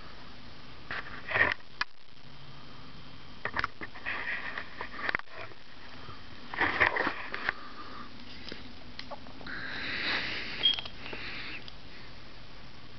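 Close breathing and sniffing through the nose in several short noisy bursts, with a few light clicks from handling.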